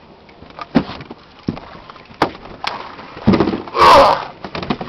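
Scattered knocks and clunks of people and gear against a small metal boat's hull, with a louder rushing burst of noise about four seconds in.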